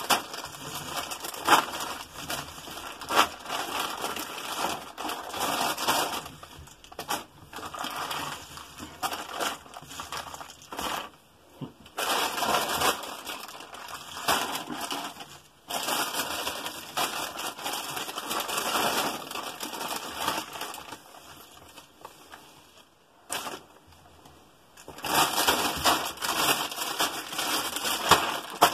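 Cardboard jigsaw puzzle pieces being scooped by hand into a plastic bag: a dense rustling clatter of pieces mixed with crinkling plastic, broken by a couple of short pauses. Near the end the filled bag crinkles loudly as it is squeezed flat.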